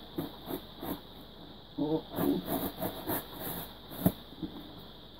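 Scissors cutting open a parcel's packaging: a run of irregular snips and scrapes, with one sharp click about four seconds in.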